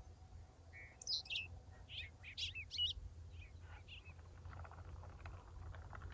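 Songbird chirping: a run of quick, high chirps that sweep up and down, over a low steady rumble of wind.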